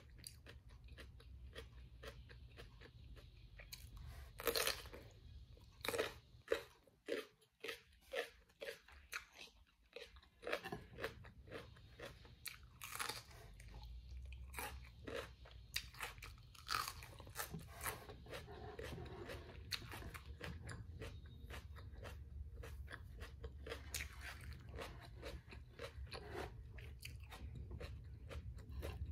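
Close-up chewing and biting of crisp fried battered food, tempura and egg-coated fried zucchini: a dense run of sharp crunches, with a steady low hum underneath that grows louder about halfway through.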